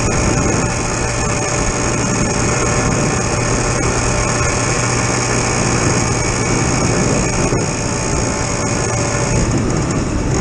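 Suzuki PV moped's small two-stroke engine running steadily under way, with wind noise over it.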